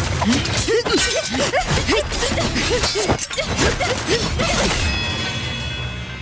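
Film fight sound effects: a fast flurry of sword clashes, swishes and hits, starting abruptly and thinning out about five seconds in, over background music.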